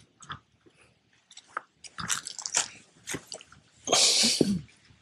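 Irregular crunching steps and handling noise on ground strewn with sawdust and wood chips, with a short, louder rough rustle about four seconds in.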